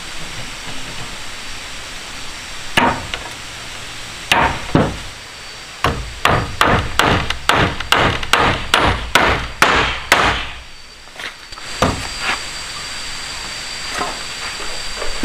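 Repeated blows of a hand tool on wood: a few scattered strikes, then a steady run of about ten at roughly two and a half a second, a short pause, and more spaced strikes.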